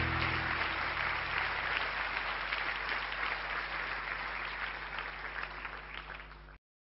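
Audience applauding as the band's last chord rings out and dies away in the first second. The applause then slowly fades down and cuts off suddenly near the end.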